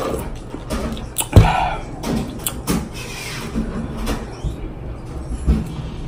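Close-up eating and handling sounds: a sip through a straw from a foam cup, a sharp thump about a second and a half in, then scattered clicks and rustles of fingers picking food from a plate, and mouth sounds.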